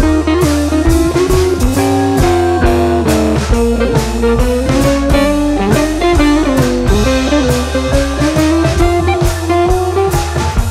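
Instrumental background music: a lead melody that slides up and down in pitch over a steady drum beat.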